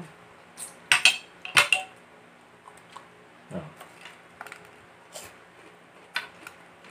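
Metal spoon clinking against ceramic plates: a few sharp clinks, the loudest pair between one and two seconds in and another near the end.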